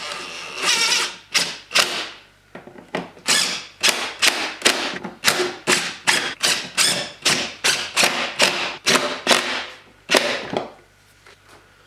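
Cordless power driver with a socket on an extension, running in short bursts about two a second as it drives the T30 Torx bolts of the air filter housing cover back in. It stops about ten seconds in.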